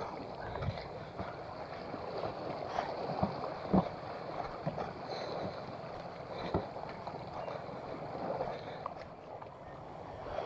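Footsteps crunching and squelching over wet, weed-covered reef rocks, with small waves washing against the rocky shore. A few sharper knocks stand out, the loudest about four seconds in.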